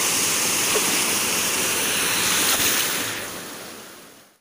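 Shallow rocky river rushing over stones: a steady, loud wash of water that fades away in the last second or so.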